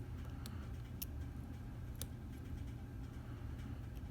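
A few faint, sparse metallic clicks as a lock pick works the pin stack of a Stanley 24/7 padlock under tension, over a steady low hum.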